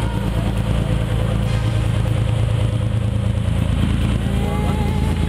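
A fishing boat's engine running with a steady low drone, heard from the open deck.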